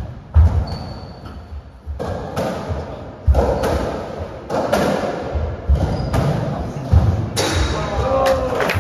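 Racketball rally on a squash court: the ball struck by racquets and smacking off the walls, about ten sharp, echoing hits at an irregular pace.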